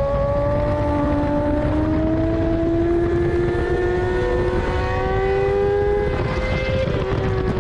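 2014 Kawasaki ZX-10R's inline-four engine at high revs under hard acceleration, its pitch climbing steadily, then dipping slightly near the end. Wind rush runs underneath.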